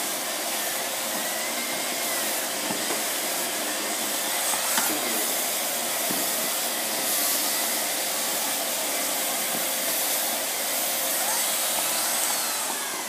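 Miele S7 Cat and Dog upright vacuum running at full suction through its powered hand tool with rotating brushes, picking up loose fluff from a mat: a steady rush of air with a faint steady hum.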